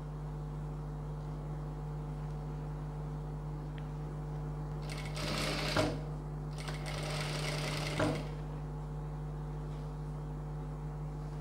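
Industrial lockstitch sewing machine stitching a blouse seam in two short runs, the first about five seconds in and the second about a second and a half long just after it. A steady low hum runs under them.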